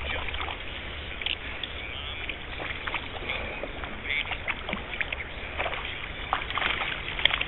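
Irregular small splashes and sloshing at the water surface from a hooked trout being played close in, over a steady rushing background of moving water.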